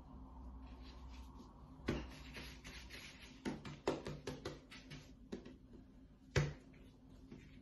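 Hands shaping and pressing balls of yeast dough on a table: a run of soft pats and taps on the dough and tabletop, with one louder thump about six seconds in.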